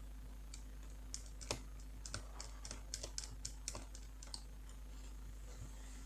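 A rapid series of small, light metallic clicks from a screwdriver working the tiny screws that hold a laptop graphics card to the motherboard, stopping a little past four seconds in.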